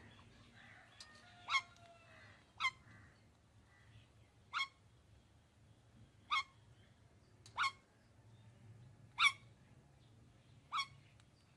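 A parrot giving seven short, sharp squawks, spaced one to two seconds apart, with softer chatter in the first two seconds.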